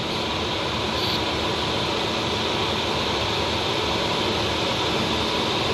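Steady rush of air streaming over the canopy and airframe of a Duo Discus glider in engineless flight, heard from inside the cockpit.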